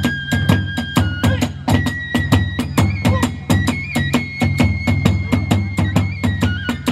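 Kagura hayashi ensemble playing: a big drum and hand cymbals keep a fast, even beat of about four strikes a second, while a bamboo transverse flute holds long notes that step up and then back down.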